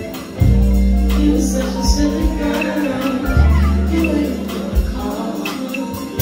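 Live band music played loud in a club, with deep, sustained bass notes coming in about half a second in under a steady run of percussion hits.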